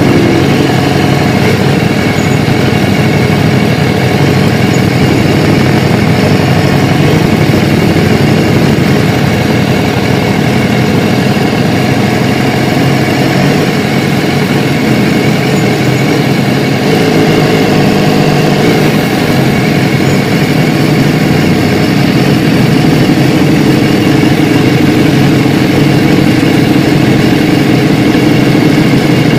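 Sport motorcycle engine running steadily at low revs, heard from on the bike, as it rolls slowly and then sits idling, with no revving.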